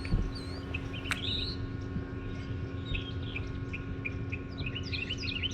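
Several small birds chirping, a dense run of short, quick calls, over a steady low hum. A single sharp click comes about a second in.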